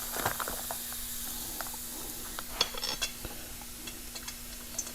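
Light metallic clicks and taps of beadlock ring bolts being handled and threaded in by hand, scattered and irregular, over a faint steady hum.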